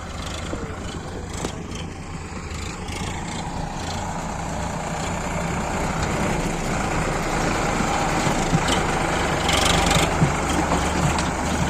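Diesel engine of a JCB 3DX Eco backhoe loader running steadily and growing slightly louder, with a short hiss about ten seconds in.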